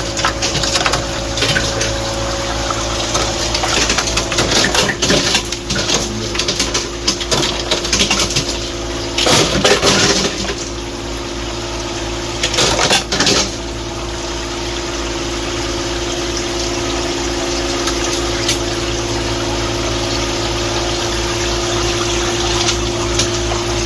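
Hoshizaki ice machine running in its harvest cycle: a steady machine hum with water running, and irregular clattering and cracking of ice cubes releasing and dropping during roughly the first half, after which only the steady hum remains.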